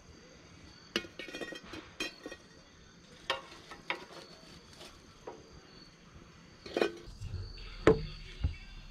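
Metal grill tongs clicking and clinking against a campground charcoal grill's grate and plate, a sharp click every second or so, over a steady high chorus of insects. Near the end come two louder knocks.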